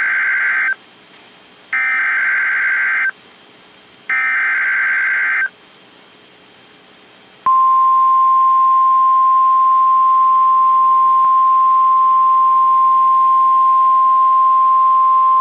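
NOAA Weather Radio Emergency Alert System activation: the tail of one and then two more bursts of SAME digital header tones, each about a second and a half long with a second's gap, then from about 7.5 s in the steady single-pitch 1050 Hz warning alarm tone, signalling that a warning (here a severe thunderstorm warning) is about to be read.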